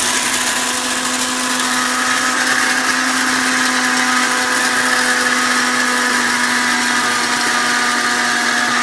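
Havells mixer grinder motor running at full speed with a steady, unchanging whine, grinding dry chana dal into gram flour (besan) in its small stainless steel jar without any water.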